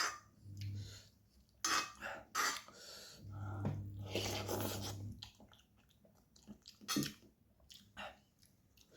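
Close-miked eating of spicy instant noodles: a few loud slurps in the first half, then quieter chewing with a couple of sharp clicks.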